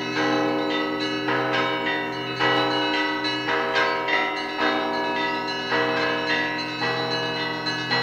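Russian Orthodox bell ringing (zvon) on the belfry bells of the Spaso-Evfimiev Monastery. Several bells are struck in a rhythmic pattern, with fresh strokes about twice a second ringing over the steady hum of a large low bell.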